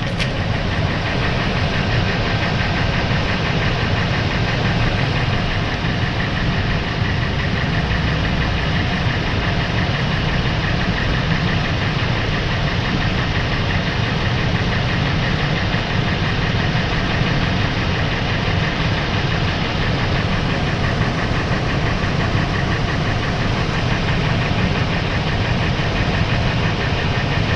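Warmed-up Ford 5.4-litre V8 idling steadily with a fast, even knock, which the owner suspects may be piston slap.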